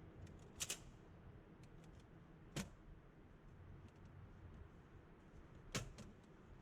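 A few sharp clicks over a faint steady background: a quick double click under a second in, a single click in the middle, and another double click near the end.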